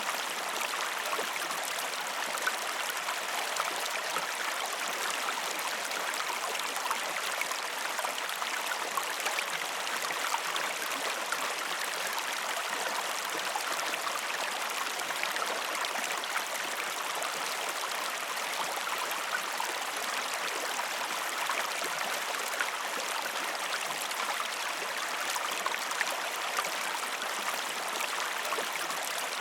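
Waterfall: a steady rush of falling water with fine splashing and trickling, even throughout and with little deep rumble.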